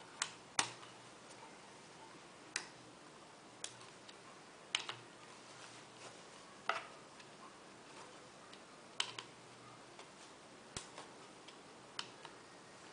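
Irregular sharp metallic clicks and taps, a dozen or so, a second or two apart, from a screwdriver working around the rim of a Toyota Land Cruiser 90's viscous fan clutch.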